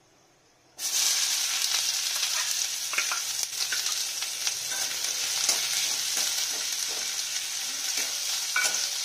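Chopped onion dropped into hot oil in a kadai, starting to sizzle suddenly and loudly about a second in, then frying with a steady hiss. A metal spatula stirs and scrapes against the pan with short clicks.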